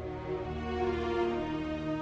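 Background music with slow, held notes.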